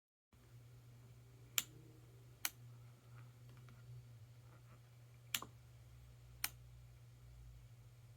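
Four sharp clicks in two pairs, the clicks in each pair about a second apart, over a faint steady low hum.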